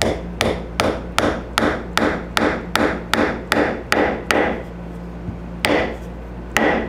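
Hammer tapping on a small hand-held metal tool in steady blows, about two and a half a second. The blows stop for about a second past the middle, then start again with a slight metallic ring.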